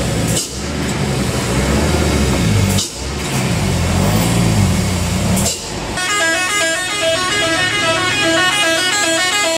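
Heavy truck diesel engine running under load as a Hino 500 truck pulls around a steep hairpin, the sound cutting abruptly between clips. From about six seconds in, a vehicle horn sounds a repeating pattern of several tones.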